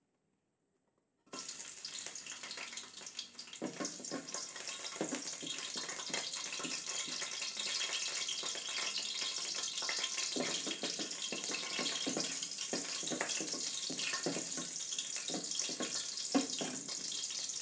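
Hot oil sizzling steadily in a wok as chopped aromatics sauté, starting suddenly about a second in, with a wooden spatula scraping and tapping the pan.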